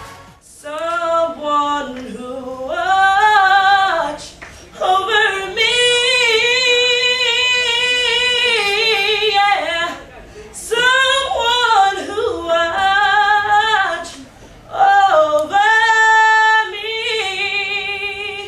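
A young woman singing solo and unaccompanied, in several phrases of long held notes with vibrato, broken by short pauses for breath.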